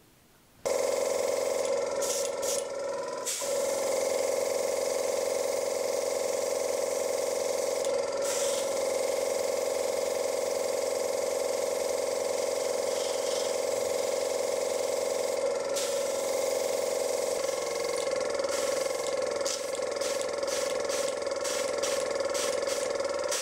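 Airbrush spraying paint, driven by a small compressor: a steady motor hum under a hiss of air, setting in about a second in. The hiss drops out briefly several times while the hum carries on.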